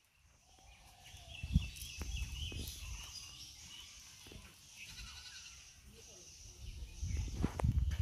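Low thumps and rumble from a cast net being gathered and handled on a bamboo raft, with one sharp thump about one and a half seconds in and more near the end. Faint wavering animal calls sound in the background.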